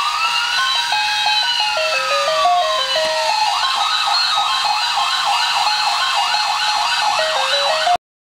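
Electronic toy siren from a SWAT police truck pencil sharpener: one slow rising-and-falling wail, then a fast warble from about three and a half seconds in. It plays over a stepped electronic jingle from an ice cream truck pencil sharpener, and both cut off suddenly near the end.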